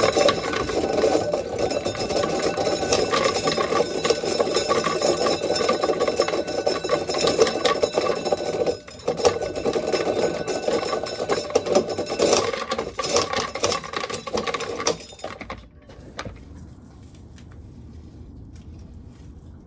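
Old corn sheller running with a loud, steady rattle and clatter, dipping briefly about nine seconds in and stopping about fifteen seconds in, leaving a low steady background.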